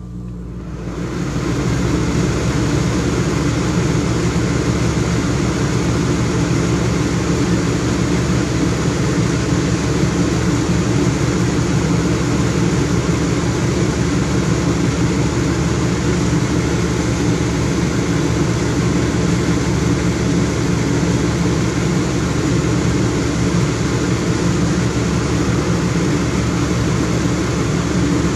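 Air-conditioning unit starting up: its hum builds over the first couple of seconds as it comes up to speed, then it runs steadily with a low even drone and a broad rush of air.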